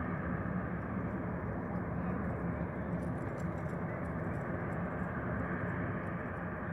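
Steady outdoor background noise: an even rumble and hiss with a low hum running through it.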